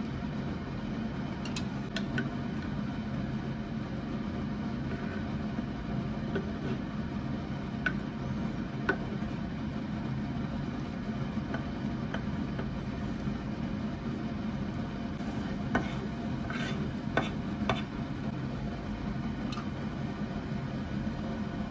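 Steady low hum under egg cooking in a rectangular tamagoyaki pan, with a few sharp clicks and scrapes as a plastic slotted turner folds and rolls the omelette against the pan, most of them clustered a little after the middle.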